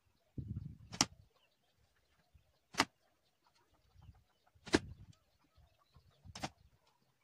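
Arrows from a recurve bow striking a cardboard box target: four sharp hits about two seconds apart, with a dull low sound shortly before some of them.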